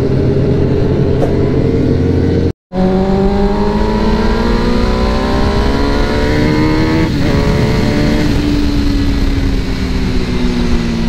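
Sport motorcycle engine under way at speed, with wind rush. After a split-second break in the sound it pulls up steadily in pitch through a gear, drops at a shift about seven seconds in, then holds a steady pitch.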